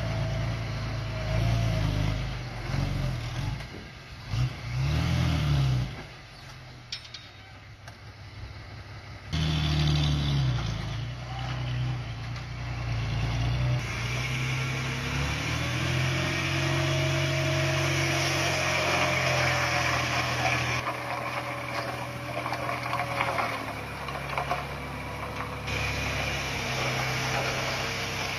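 Komatsu D51PX crawler dozer's diesel engine at work, its pitch rising and falling as it revs up and eases off while pushing stone, with a quieter stretch about six to nine seconds in.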